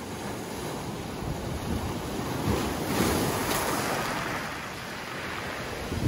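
Sea waves breaking around boulders and washing up over a pebble beach. A surge swells about two seconds in, peaks around three seconds, then ebbs away.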